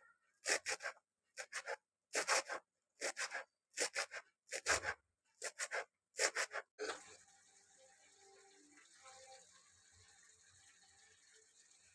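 Kitchen knife chopping fresh coriander leaves on a plastic cutting board: quick sharp chops in twos and threes for about seven seconds, then only a faint hiss.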